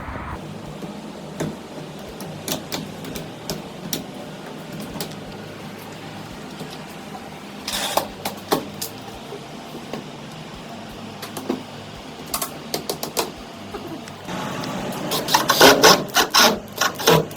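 Cordless screwdriver driving self-tapping screws through new PVC window mullions into the frame's steel reinforcement, in short runs with scattered clicks and knocks of handling. A louder, dense run of rapid clicking comes near the end.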